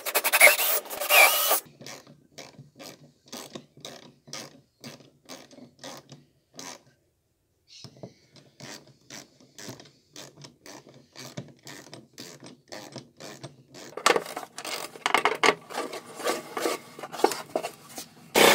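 Ratchet wrench worked back and forth in steady strokes, about two a second, tightening bolts down into T-nuts. A louder burst of noise comes first, and the strokes get quicker and louder near the end.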